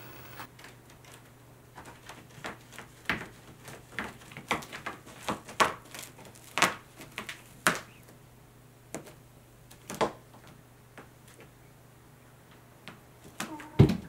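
Munchkin cat's claws catching and scratching on a homemade scratching-board wall as it climbs: an irregular run of quick clicks and scrapes, with a louder thump near the end.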